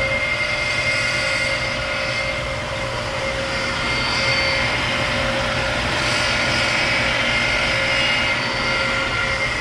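Milling machine running steadily as it face-mills a warped throttle body flat, a constant whine at one pitch over cutting noise. The throttle body is being flattened because it was warped and sucking air.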